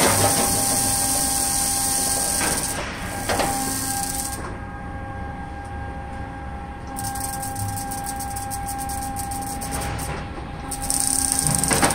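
Plate rolling machine running as it bends a metal sheet: a steady motor hum with a thin whine and hiss, and a few faint knocks.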